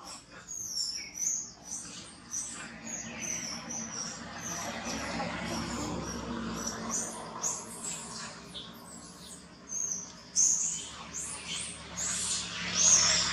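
Baby macaque giving a rapid string of short, high-pitched distress squeaks, about two or three a second, louder near the end, while pinned under its mother's weight.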